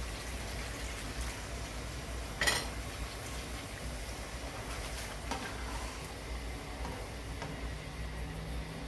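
Fish curry sizzling and bubbling in a kadai with water just added to the hot oil and fried mullet. A utensil knocks sharply against the pan about two and a half seconds in, with a fainter knock a few seconds later.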